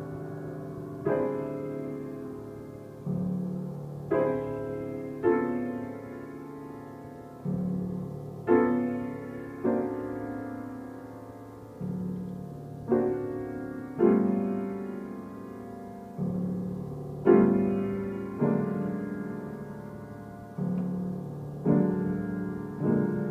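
Grand piano played slowly and softly: separate chords struck about once every second or so and left to ring and fade, with low bass notes sounding between them.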